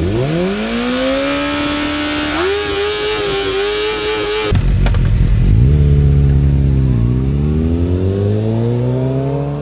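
Kawasaki sportbike engine revved sharply from idle, held high and then stepped up once more. After an abrupt change, motorcycle engines accelerate, their pitch climbing, dipping once and climbing again.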